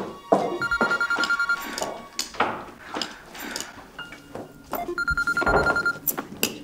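Mobile phone ringing with an electronic ringtone: two rapidly pulsing bursts of about a second each, roughly four seconds apart, with a few clicks and knocks in between.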